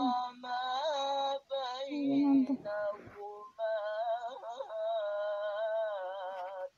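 A song playing: a singing voice holding long, wavering notes over music, cutting off suddenly at the end.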